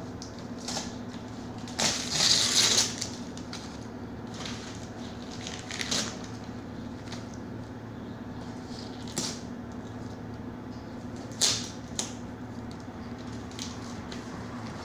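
Play-Doh toy set's packaging being handled and pried open: a loud rustle about two seconds in, then scattered crackles, clicks and taps, over a steady low hum.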